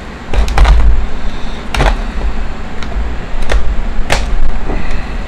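Stiff plastic blister packaging being handled and pulled apart from its cardboard backing card, giving a series of sharp crackles and snaps.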